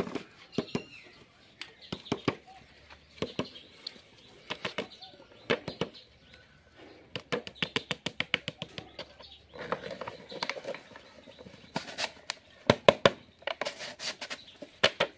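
A clear plastic jar and its red plastic screw lid being handled and closed over a snake: sharp clicks and taps throughout, with quick runs of clicks as the lid is pressed and twisted on.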